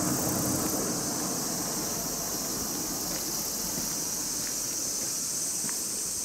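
A steady, high-pitched chorus of summer insects, while the noise of a passing vehicle dies away in the first second.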